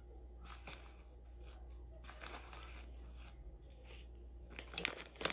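Plastic spice packet crinkling and rustling as lemon pepper is spooned out of it, faint at first with louder crackles near the end.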